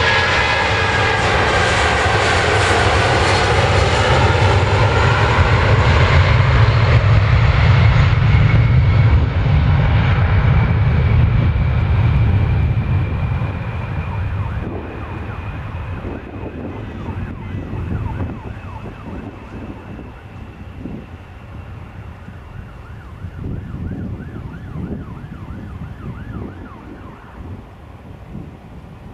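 Boeing 757-200 jet engines, Rolls-Royce RB211 turbofans: a loud, deep rumble with whining tones that dip and rise in pitch as the airliner passes and runs up to takeoff power. It is loudest in the first third, then fades as the plane climbs away, leaving a thin whine that slowly rises in pitch. Wind buffets the microphone in the second half.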